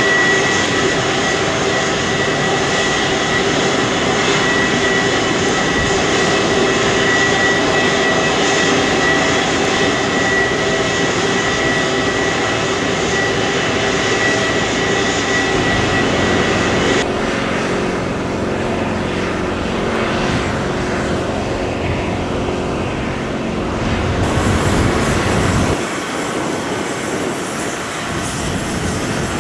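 Airbus CC-330 Husky (A330) turbofan engines running at taxi power: a steady jet rumble with a high whine. The sound changes abruptly about two-thirds of the way through and again near the end.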